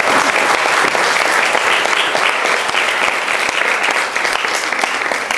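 Audience applauding: many hands clapping together in a dense, steady patter that eases slightly near the end.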